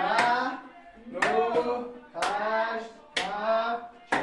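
About six sharp hand claps, roughly one a second, with a voice singing held notes between them: a person clapping along while singing.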